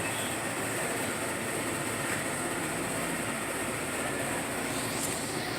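Steady, even rushing background noise of a large store's interior.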